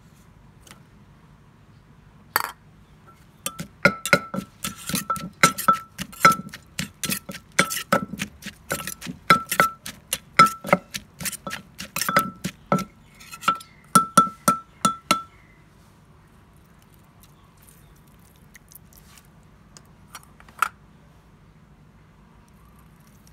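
Wooden pestle pounding papaya salad in a clay mortar, with a metal spoon clinking against the pot. It is a fast uneven run of knocks with short ringing chinks, about two to three a second, and stops about three quarters of the way through.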